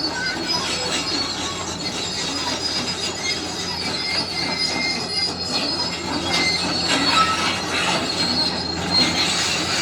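Excavator at work: a steady engine hum under high-pitched metallic squeals and scraping that come and go.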